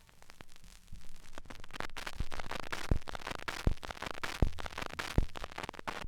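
Shellac 78 rpm record turning in its run-out groove after the song ends: surface crackle and hiss, with a thump about every three quarters of a second, once per turn of the disc. It cuts off abruptly at the end.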